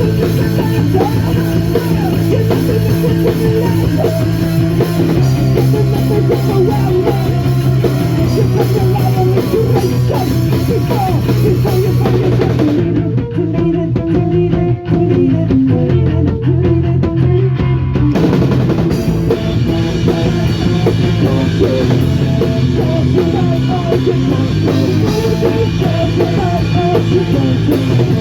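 Punk rock band playing live: guitar, bass and drums, loud and continuous. The band thins out for about five seconds midway, then comes back in full.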